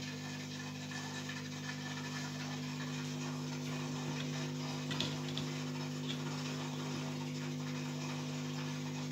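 Steady electrical hum of running aquarium equipment with a faint hiss, and a few light ticks about five seconds in.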